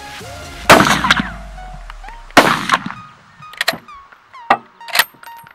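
Two loud rifle shots about a second and a half apart, each ringing out, followed by a few quieter sharp cracks, over background music.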